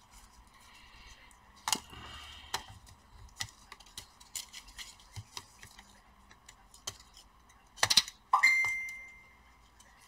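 Small clicks and taps of a laptop cooling fan being pressed into its plastic housing and its cable worked with metal tweezers, with a brief scraping rustle about two seconds in. Near the end a sharper knock is followed by a short metallic ring that fades within a second.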